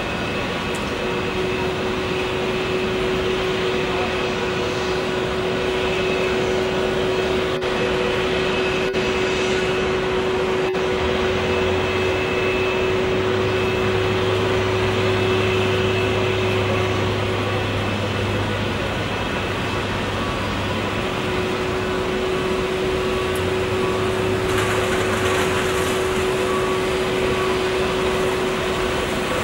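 Airbus A380's jet engines running at taxi idle: a steady whine over a continuous rush, with a deeper drone joining about eleven seconds in.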